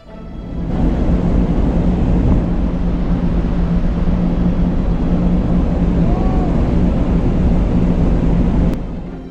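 Steady low drone of a large ferry's engines, with wind rushing over the microphone. It fades in at the start and fades out near the end.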